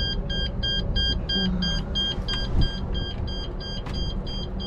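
An electronic beeper beeps steadily at about three short beeps a second, over a low rumble.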